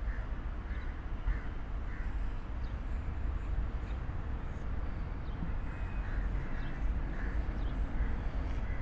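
Marker writing on a whiteboard, with faint short squeaks as the letters are drawn, over a steady low outdoor rumble.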